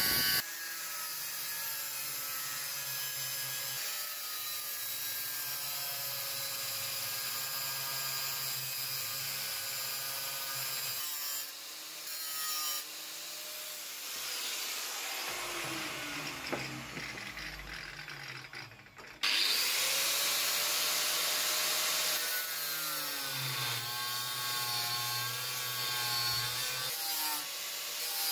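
Angle grinder with a thin cutting disc running and cutting notches into a square steel bar, its whine wavering as the disc bites. Midway it is switched off and spins down with a falling whine, then starts again and cuts on.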